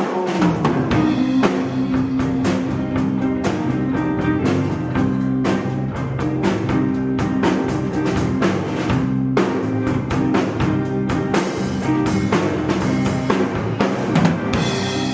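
Live rock band playing: drum kit with steady beats, electric guitar and bass.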